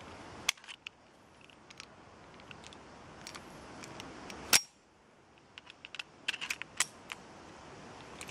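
Small metallic clicks and clacks of a .45 Metro Arms 1911 pistol and its magazine being handled and loaded with cartridges. Two louder sharp clacks come about half a second and four and a half seconds in, the second the loudest, and a quick run of small clicks follows near six to seven seconds.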